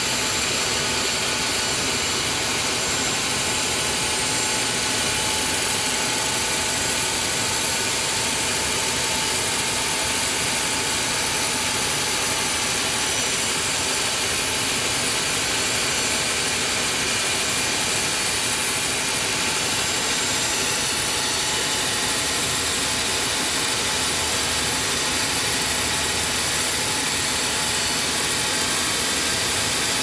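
Large band sawmill sawing a big log as the carriage feeds it through the blade: a loud, steady hiss with high, even tones that holds without a break.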